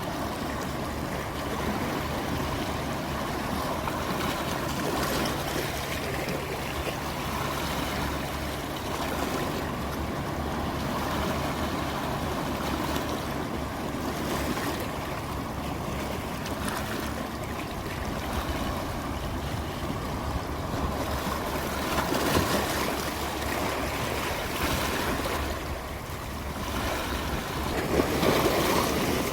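Sea waves washing in and drawing back, a steady rush of surf that swells louder about three-quarters of the way through and again near the end.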